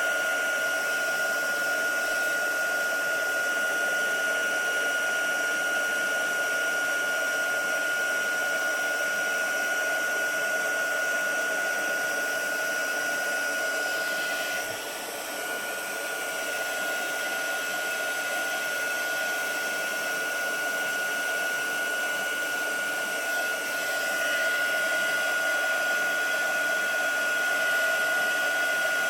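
Heat embossing tool blowing steadily with a high, even whine, melting embossing powder. The sound dips briefly about halfway through.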